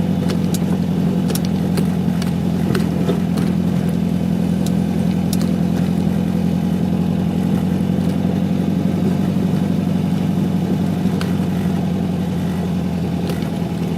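Air-cooled flat-four engine of a VW Beetle 1600 running steadily while driving, heard from inside the cabin.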